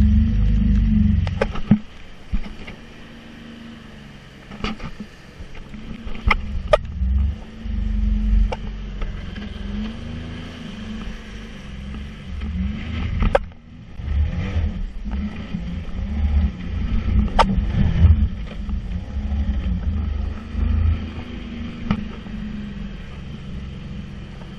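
Sea-Doo jet ski engine running, its pitch rising and falling again and again as the throttle changes, over a heavy low rumble. Scattered sharp knocks come through.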